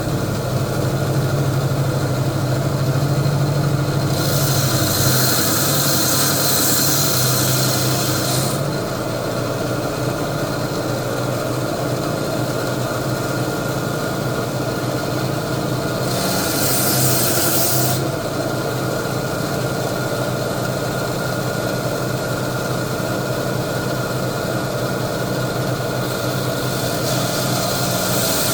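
A power cutting tool running steadily while cutting hammer coral's stony skeleton into frags. It hums throughout, with three stretches of loud, hissing grinding as the blade bites into the skeleton.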